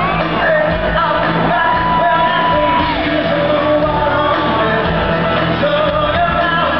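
Rock band playing live, a male lead singer over electric guitar, bass guitar and drums, holding one long note about a second and a half in.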